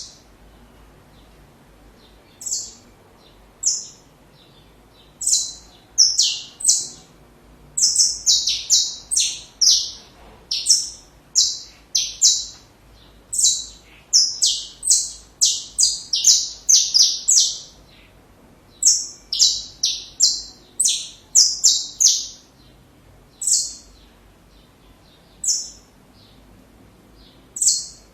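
Saffron finch (canário-da-terra) singing: bouts of short, high notes that each drop sharply in pitch, strung together quickly, with gaps of one to three seconds between bouts. It starts singing about two and a half seconds in, and pauses again near the end.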